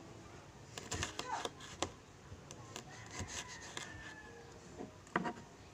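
Kitchen knife slicing bird's eye chillies (siling labuyo) on a cutting board: irregular sharp taps of the blade against the board, the sharpest about five seconds in.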